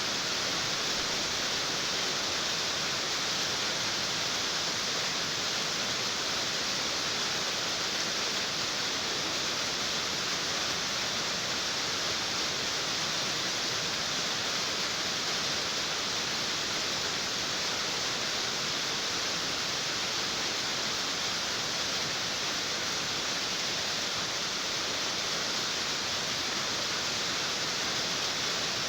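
Steady rain on a tin roof, heard as an even, dense hiss that stays at one level throughout, brightest in its high end.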